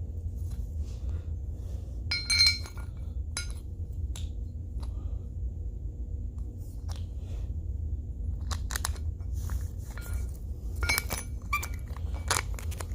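Small metal hinge parts and washers clinking and ringing as they are handled and fitted together, in scattered short knocks with a cluster about two seconds in and another near the end, over a steady low hum.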